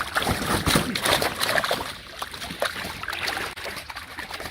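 Water splashing and sloshing in quick, irregular strokes, heaviest in the first second or so.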